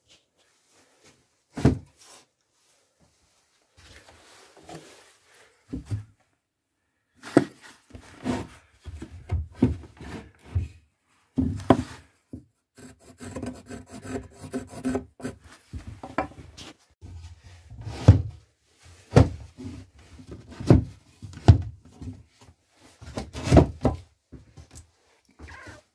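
Irregular wooden knocks and thuds with stretches of rubbing and scraping, as boards and tools are handled on a plank workbench.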